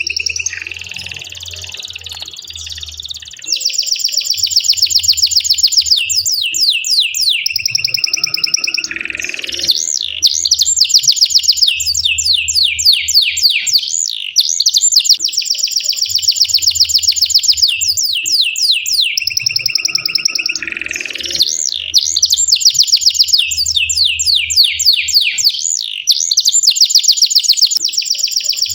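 Domestic canary singing in long, fast rolling trills, phrase after phrase with only brief pauses.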